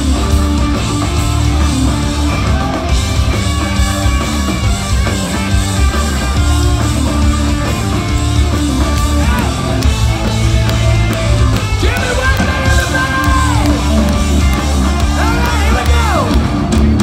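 Hard rock band playing live through a large stage PA, with electric guitars over a heavy, steady bass. A singer's voice comes in about twelve seconds in and again near the end.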